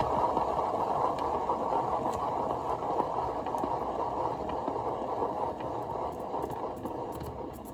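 Hand-spun turntable carrying a painted canvas, rolling with a steady rumble that starts suddenly as it is pushed off and slowly fades as it spins down.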